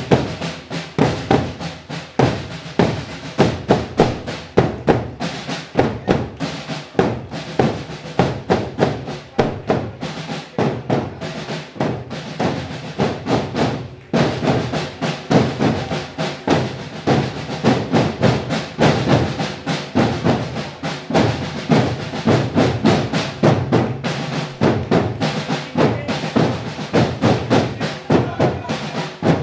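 Marching drums of a historical parade group playing a steady rhythmic beat.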